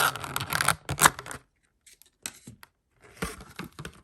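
Cardboard and plastic packaging being handled: a burst of rustling and crinkling in the first second and a half, then a few small clicks and taps, and another short rustle a little after three seconds.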